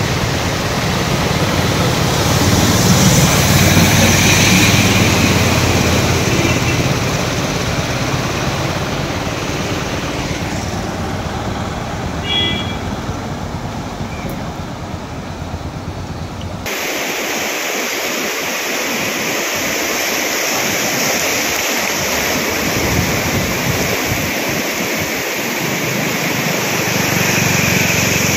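Vehicles driving through a flooded road: a steady rush of water and tyre noise over a low engine rumble, with a short high beep about twelve seconds in. About seventeen seconds in it changes abruptly to the steady rushing of a river in flood, with gusts of wind on the microphone.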